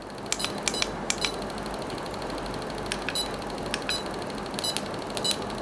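A string of short, sharp electronic clicks or beeps at irregular intervals, typical of buttons being pressed to step through the settings of a cordless endodontic motor, over a steady hiss.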